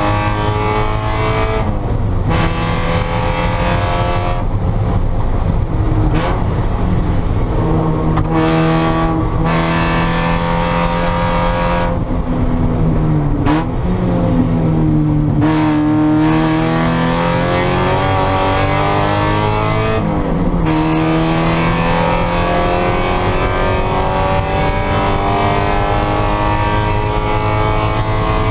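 Spec Miata's four-cylinder engine running hard at racing speed, its pitch climbing through the gears with short breaks at each upshift. Midway the pitch drops in steps and climbs again, as when braking and downshifting for a corner and accelerating out.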